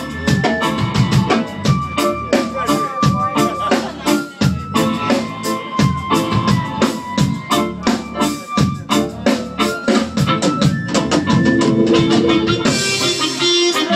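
Live reggae band playing an instrumental passage: drums keeping a steady beat over bass and sustained keyboard chords, with a brief hiss, like cymbals, near the end.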